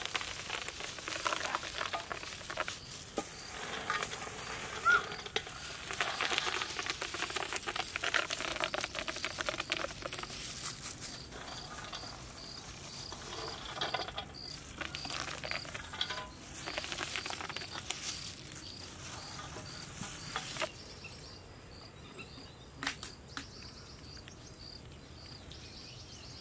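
Chopped almonds, cashews and pistachios scattered by hand onto a pot of liquid mango sweet, a dense pattering of small clicks that stops about twenty seconds in. A steady train of high insect chirps, likely crickets, runs underneath.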